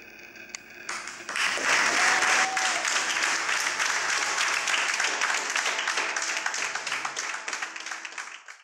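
Audience applauding, starting about a second in after a faint tail of music, and cutting off suddenly at the end.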